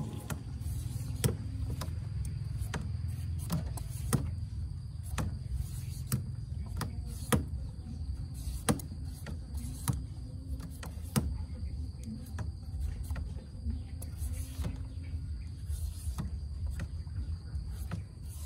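Hand peeler scraping the skin off a green papaya in short, sharp, irregular strokes, one or two a second. A steady high insect drone runs behind.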